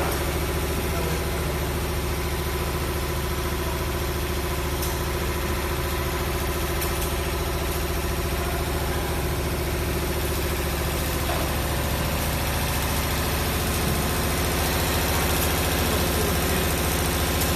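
Six-spindle CNC needle winding machine for brushless-motor stators running: a steady mechanical running noise over a low, even hum, with no change in speed.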